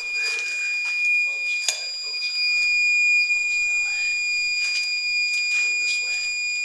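A steady, high-pitched electronic tone, like a buzzer or alarm held on without pulsing, sounds throughout, with faint movement and a sharp click under it about two seconds in.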